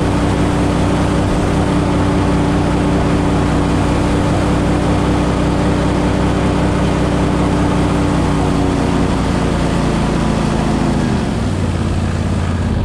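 Gator Tail GTR40XD surface-drive mud motor pushing a jon boat at a steady cruising speed, with wind and water noise over it. About eleven seconds in the engine note drops as the throttle is eased back.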